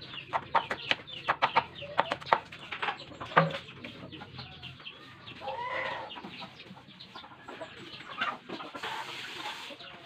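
Chickens clucking, with one rising-and-falling call about six seconds in. Over the first few seconds a cleaver chops garlic on a wooden cutting board in a run of sharp taps.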